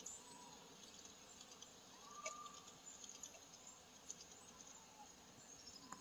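Near silence: faint outdoor background with scattered faint high ticks and one short faint chirp about two seconds in.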